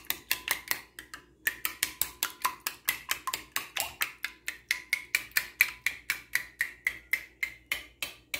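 A metal spoon beating eggs in a glass bowl: quick, regular clinks against the glass, about five or six a second, with a short pause about a second in.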